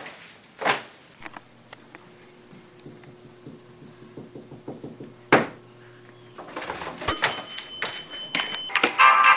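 Two sharp clicks or knocks separated by a faint low hum, then a bell-like chime with several steady ringing tones about seven seconds in, and music starting near the end.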